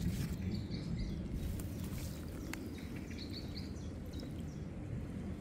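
A steady low outdoor rumble, with a few faint bird chirps and a single sharp click about two and a half seconds in.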